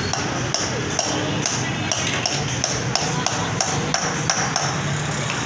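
Motorcycle engines and street noise on a busy bazaar lane, with a sharp knocking repeating two or three times a second throughout.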